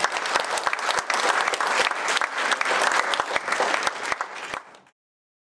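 Audience applauding, a dense patter of many hands clapping that fades quickly near the end and cuts off to silence.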